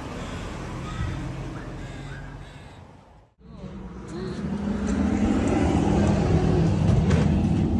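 Street ambience with traffic noise. The sound fades out briefly about three seconds in, then comes back louder and steady.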